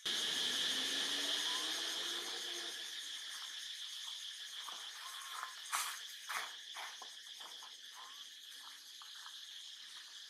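Steady high-pitched drone of insects, easing off slightly over the stretch, with two short sharp crackles about six seconds in.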